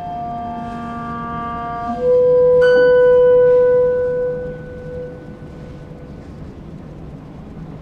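Chamber quartet of violin, cello, clarinet and piano playing slow, sustained notes of a contemporary classical piece. About two seconds in a loud long held note sets in, with a single struck note ringing over it, and fades away by about five seconds, leaving softer held tones.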